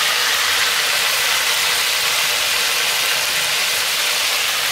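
Marinated chicken pieces sizzling as they fry in hot oil: a steady hiss.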